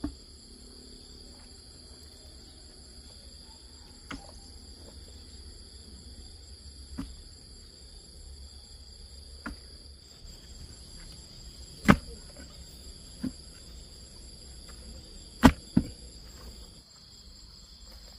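Steady high-pitched insect chirping, with sharp knocks a few seconds apart at irregular intervals. The loudest are a single knock about twelve seconds in and a quick pair about fifteen and a half seconds in.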